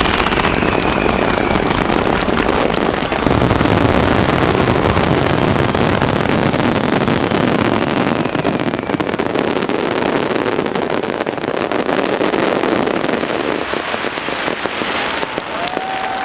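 Fireworks finale barrage: a dense, continuous stream of bursts and crackling shells, growing louder about three seconds in and thinning slightly near the end.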